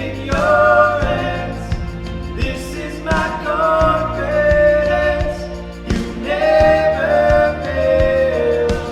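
Contemporary worship song: three sung phrases with long held notes over a steady bass line and a light drum beat.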